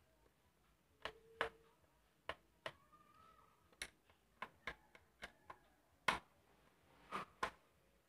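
Small screwdriver clicking and tapping against screws and the plastic base of a laptop as its screws are undone: about a dozen light, irregular clicks.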